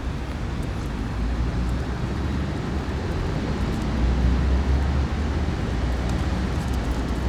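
Steady low rumble of outdoor background noise, with no clear single event standing out.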